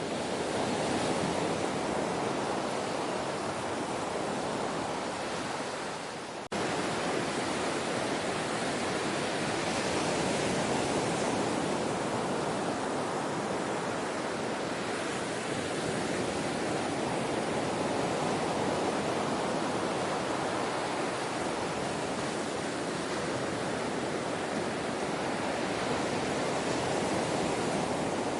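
Ocean surf washing on a shore: a steady rush of waves that gently rises and falls, with a momentary dropout and abrupt restart about six seconds in.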